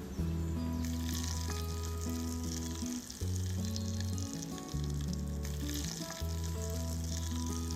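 Small shrimp and chopped garlic sizzling in oil in a miniature steel pan, stirred with a wooden spoon, under louder background music of slow held low notes.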